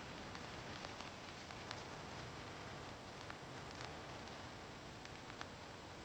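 Steady light rain: a soft, even hiss with single drops ticking sharply at irregular moments.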